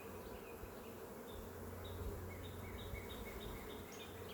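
Honeybees buzzing in a steady hum around an open hive during a frame inspection. Short high chirps repeat about three times a second over the buzz.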